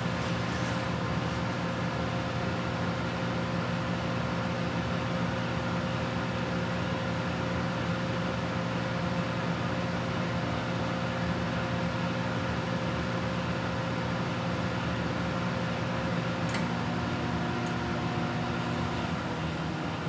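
Microwave oven running with a steady hum, with a couple of short sharp ticks about three-quarters of the way through.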